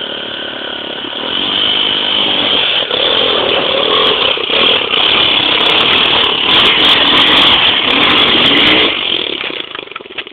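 Enduro dirt bike engine revving hard under load on a steep, loose climb, its pitch rising and falling with the throttle. It gets louder about a second in and falls away about nine seconds in.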